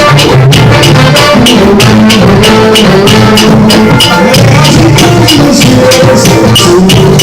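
Samba batucada percussion group playing a fast, steady beat, with drum hits several times a second over a sustained low tone.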